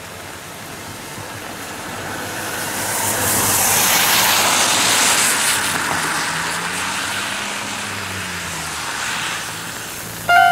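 A vehicle passes close by: a broad hiss swells over the first few seconds and then fades, with a faint low hum that falls in pitch. Music starts right at the end.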